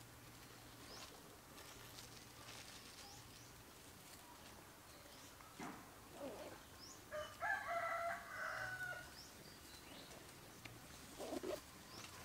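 A rooster crows once, about seven seconds in: one drawn-out call lasting about a second and a half. Around it there is a faint background of short high chirps and a few soft rustles.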